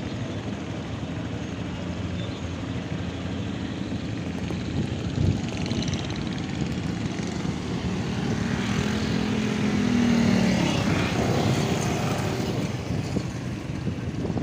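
Steady wind rush and engine rumble from riding a motorcycle. About eight seconds in, a passing motor scooter's engine note rises and then fades over a few seconds.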